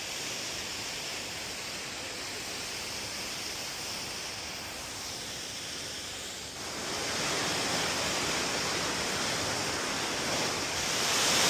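Steady rushing roar of a waterfall, growing louder in two steps, about two-thirds of the way in and again near the end.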